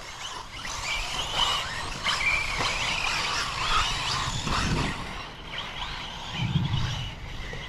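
Several 1/8-scale RC off-road buggies racing on the track, their motors whining and rising and falling in pitch as they accelerate and brake.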